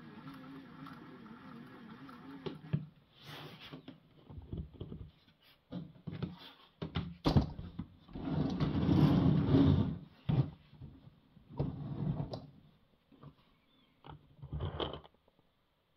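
LEGO Technic motor driving the orrery's plastic gear train with a steady whirring hum that stops about three seconds in. After that come irregular knocks, clicks and rustling handling noise, the loudest a dense rustle around halfway through.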